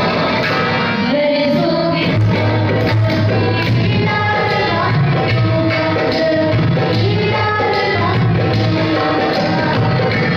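A Haryanvi song with singing over a steady beat, playing loud and continuously for the dancers.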